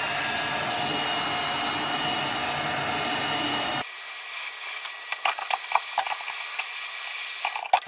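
Heat gun blowing with a steady rush and a faint whine as it softens glued-down rubber floor mats. About halfway through, the sound cuts abruptly to a thinner, rapid run of clicks and scrapes.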